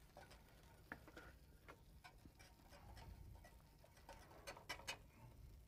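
Near silence: room tone with a few faint, scattered clicks of kitchen utensils.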